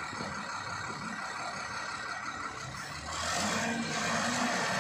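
Wheel loader's diesel engine running under load, revving up about three seconds in and growing louder.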